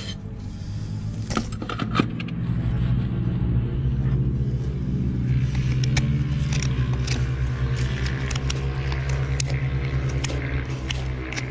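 A steady low motor rumble runs under light scrapes and clicks of a farrier's hoof knife paring the sole of a horse's hoof. The rumble builds in during the first two seconds.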